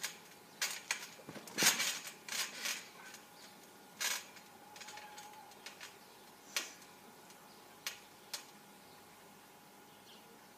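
Trampoline springs and frame clinking and creaking as a person lands, bounces and steps about on the mat. There is a busy run of clanks in the first few seconds, then single clicks every second or two.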